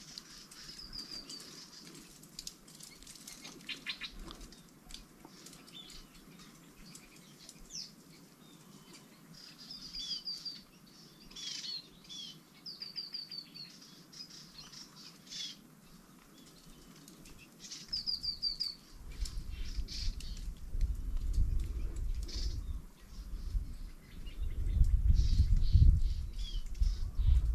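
Songbirds calling, with short rapid high trills repeated several times. From about two-thirds of the way in, low rumbling bursts come in and grow louder near the end.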